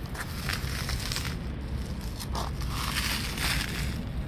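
Footsteps crunching irregularly on gravel and dry leaves, over a steady low rumble.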